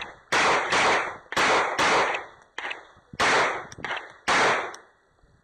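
Glock 34 9mm pistol firing about eight shots, mostly in quick pairs, each report trailing off briefly.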